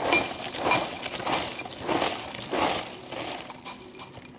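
Dry Oreo O's cereal poured from the box into a bowl, rattling and clinking in repeated surges about every half second. The surges fade near the end as the pour finishes.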